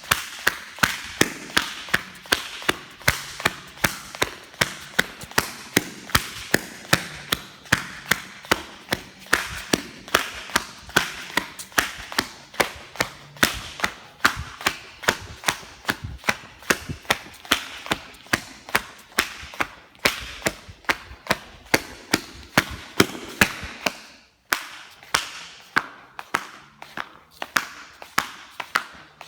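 Flip-flop sandals slapping over and over, a steady run of sharp flops at about two to three a second, with a brief pause near the end.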